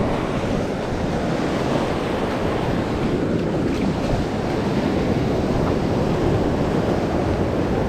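Sea surf breaking and washing over a rocky shore, a steady rushing noise, with wind buffeting the microphone.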